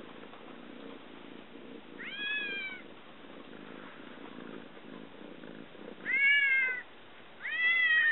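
A kitten about four months old meowing three times, each a short call that rises and then falls slightly in pitch. The first comes about two seconds in, and the other two come close together near the end.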